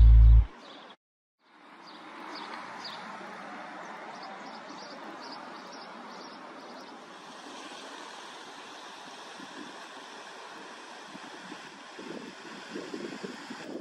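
Background music cuts off in the first half-second. After about a second of silence comes a steady outdoor rushing of river water and distant traffic, with wind buffeting the microphone near the end.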